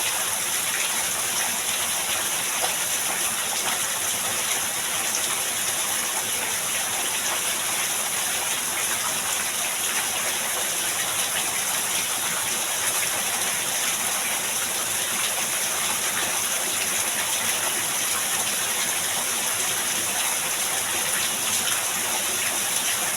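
Heavy rain pouring down, a dense steady hiss without letup.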